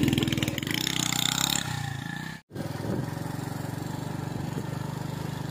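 Honda motorcycle engine running on a dirt track, louder and busier in the first second and a half. After a brief cutout about two and a half seconds in, it runs steadily at a lower level with a regular pulse.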